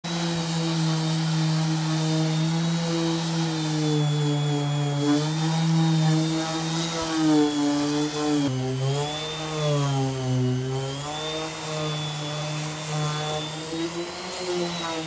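DeWalt random orbital sander running with 80-grit paper on old wooden deck boards. Its motor hum wavers in pitch as it works, sagging lowest about two-thirds of the way through before coming back up.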